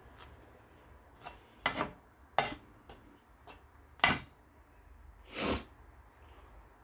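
Short scrapes and knocks of a metal utensil against a frying pan holding frying bread, about six quick strokes followed by one longer scrape near the end.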